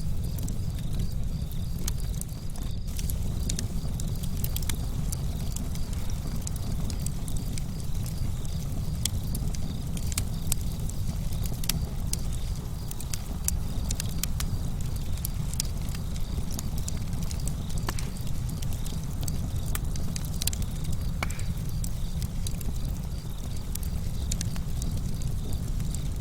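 Wood campfire burning: a steady low rumble under frequent, irregular sharp crackles and pops of the burning wood.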